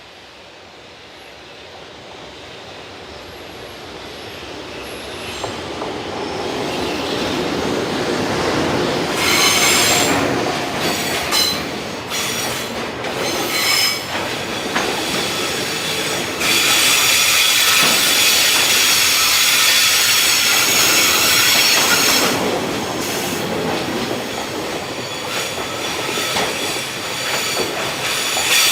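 Freight train approaching and passing, its wagon wheels squealing on the rails with some clickety-clack. The sound builds over the first several seconds, then stays loud with a high-pitched squeal.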